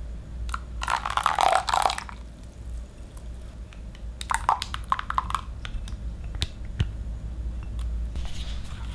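Plain yogurt and milk poured into a runny egg, sugar and oil batter in a glass bowl: two short bursts of wet splashing and glopping, about a second in and again about four seconds in.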